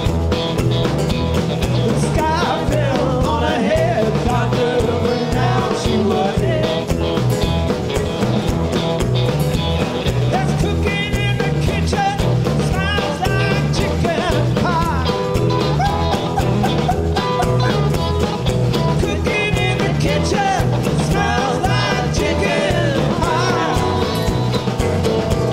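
Live band playing an up-tempo blues-rock song with a steady beat: acoustic guitar, lead guitar, bass and drums, with a man singing at the microphone.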